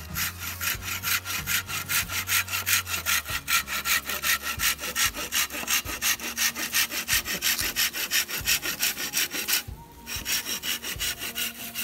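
Hand saw cutting through a green culm of wild sang bamboo in quick, even back-and-forth strokes. A short pause about ten seconds in, then the sawing resumes.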